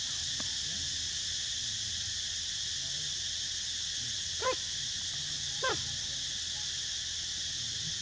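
Steady high drone of insects. Two short animal calls, about a second apart, stand out near the middle.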